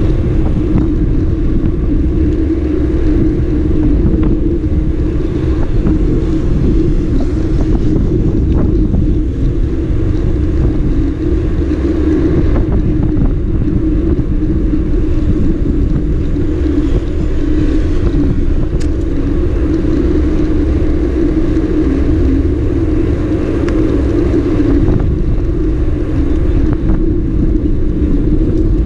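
Sport motorcycle engine running at a steady cruise, a droning note that holds one pitch, with heavy low-pitched noise underneath.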